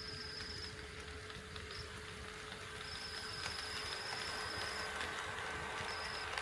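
HO-scale model train running on sectional track, growing louder from about halfway, with light irregular ticking from the wheels and running gear. A high thin tone sounds on and off over it.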